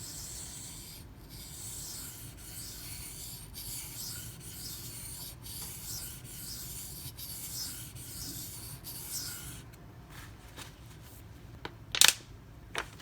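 Knife blade of 154CM steel being stroked back and forth across a 1000-grit silicon carbide sharpening stone: a steady scraping, about one stroke a second, that stops near the end. A single sharp knock follows.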